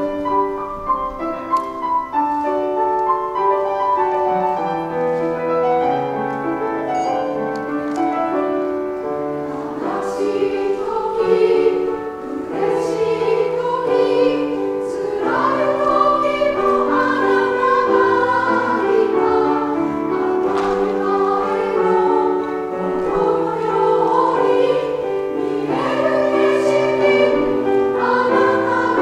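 Women's choir singing a slow song in Japanese, in several parts with held notes, accompanied by piano.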